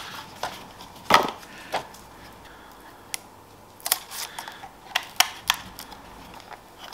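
Hard plastic clicks and knocks from handling a small folding camera drone and its battery and working its fold-out arms: scattered single clicks, the loudest about a second in, and a quick run of clicks between about four and five and a half seconds in.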